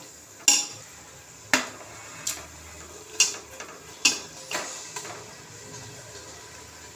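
A metal spoon knocking and clinking against a pressure cooker pot as mutton is added and stirred into the masala: about half a dozen sharp, separate metallic knocks spread over the first five seconds.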